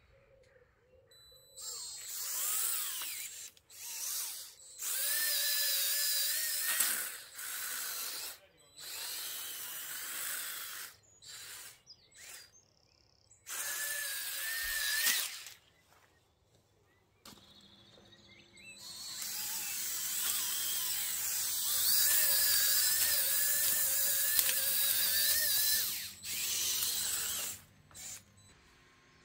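Electric motors and plastic gearing of a Lego Technic RC tank whining as it drives, in a string of bursts that start and stop, some a second long and one about ten seconds, the pitch wavering as the load changes.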